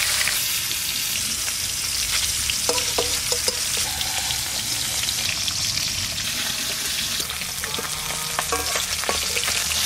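Rohu fish steaks sizzling steadily as they fry in oil in a metal kadai, with a metal spatula scraping and clinking against the pan as the pieces are turned and lifted out: a few clinks about three seconds in and again near the end.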